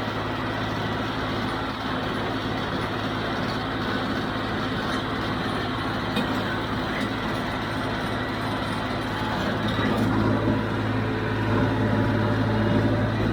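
Diesel tractor engine running steadily, growing a little louder about ten seconds in.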